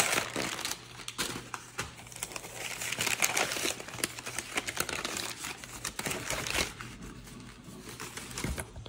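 Crumpled kraft packing paper and white wrapping paper crinkling and rustling as they are pulled out of a cardboard shipping box, in irregular crackly handfuls, loudest at the start and again around three seconds in.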